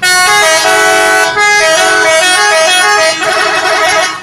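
Telolet bus horn, a multi-tone musical air horn, playing a loud stepping melody of several notes at once. It breaks off briefly about a second in, switches to a fast warble near the end, and cuts off.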